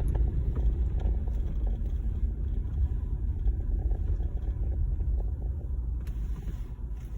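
Low, steady rumble of a car's engine and tyres heard from inside the moving car, easing a little near the end.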